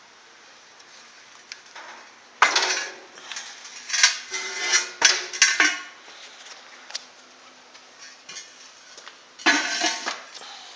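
Metal clanking and scraping in several short bursts, the loudest about two and a half and four seconds in, with another near the end, over a faint steady hum.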